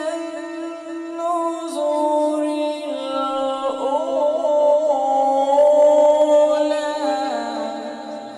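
A man's unaccompanied, melodic Quran recitation (tilawat), one long held phrase that steps between notes with a quavering ornament in the middle, then drops lower and fades out near the end.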